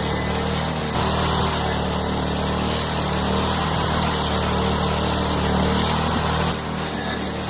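Stump grinding machine's engine running steadily, with a constant low hum under an even mechanical noise; the sound dips slightly about a second before the end.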